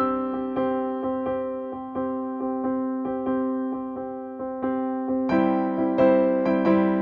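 Background music: electric piano playing repeated soft notes over a steady chord, each note fading before the next. A busier, brighter passage begins about five seconds in.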